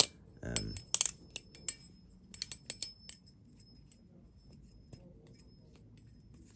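Baliplus Orca V2 clone balisong being flipped: its metal handles and blade clack and click sharply in an irregular series over the first three seconds, then the clicking stops.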